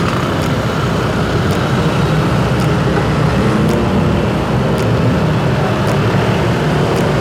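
Motorcycle riding in slow town traffic, heard from the rider's own bike: its engine running steadily under wind and road noise, with other motorcycles and cars around.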